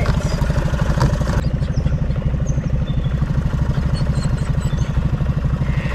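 Boat motor idling steadily, a low even beat of rapid pulses.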